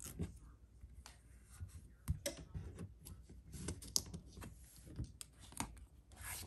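Irregular light clicks, taps and rustles of hands handling a dry erase board and sublimation paper, pressing heat transfer tape onto the edge and lifting the board.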